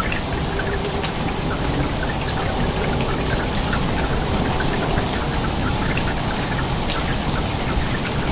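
Heavy rain pattering steadily on surfaces, with many small ticks of drops striking.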